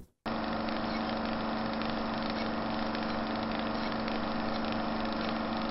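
A steady, unchanging mechanical drone at one constant pitch, starting suddenly a moment in.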